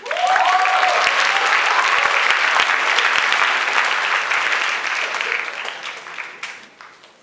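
Audience applauding, with a few cheering shouts in the first two seconds. The clapping starts abruptly and dies away over the last couple of seconds.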